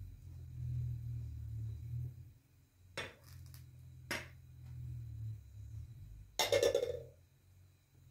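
Glass pot lid lifted off a simmering pot and set aside, with two sharp clinks of glass on metal about three and four seconds in and a louder, longer clatter about six and a half seconds in, over the low steady rumble of the gas burner.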